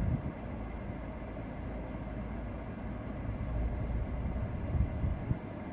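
GMC Terrain's 1.5-litre turbocharged four-cylinder engine idling, a steady low rumble heard inside the cabin, with a couple of light knocks near the end.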